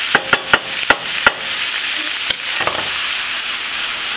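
Cauliflower rice with shredded carrots and bell pepper sizzling in a frying pan with a steady hiss, as a wooden spatula stirs it and knocks sharply against the pan, five times in quick succession in the first second and a half and once more a little after two seconds.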